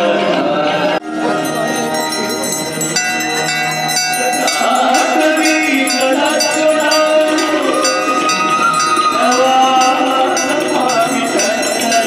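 Ganga aarti music: a devotional song sung over the ritual, with bells ringing in a steady beat. The level drops briefly about a second in.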